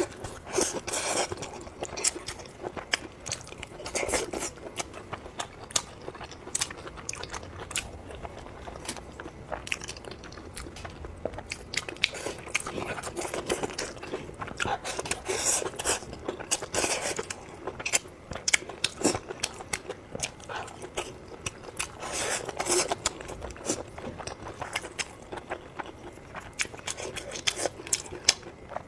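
A person chewing and biting food close to the microphone: many sharp mouth clicks and crunches, with a few louder spells of bites.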